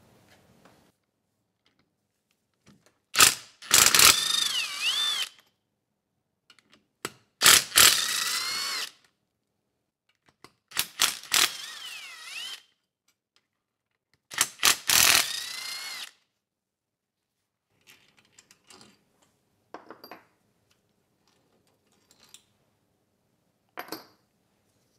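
Ryobi cordless drill/driver run in four bursts of a second or two each, its motor whine wavering in pitch, as it drives bolts back into a small engine's cylinder head. A few light clicks of tools and parts being handled follow near the end.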